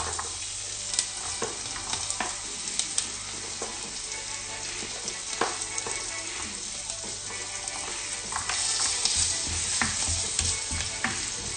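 Garlic sizzling in melted butter in a wok, stirred with a spatula that taps and scrapes the pan now and then. The sizzle starts suddenly as the garlic goes in and grows louder about eight seconds in.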